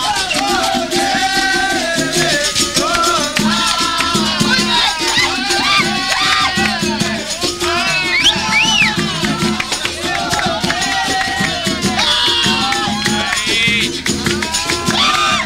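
Capoeira roda music: a group singing and clapping along to a steady rhythm, with shaken-rattle percussion and drumming.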